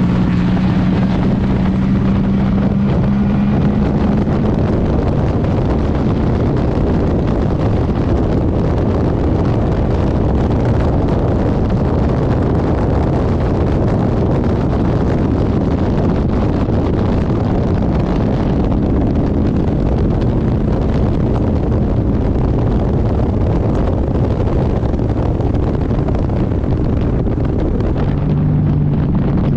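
Race car's GM engine running steadily under load, heard through heavy wind and road noise. Its pitch drops near the end.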